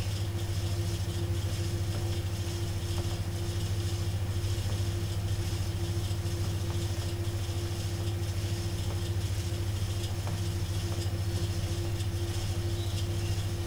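Electric potter's wheel motor humming steadily while the wheel spins, with a faint rubbing of wet hands on the turning clay bowl.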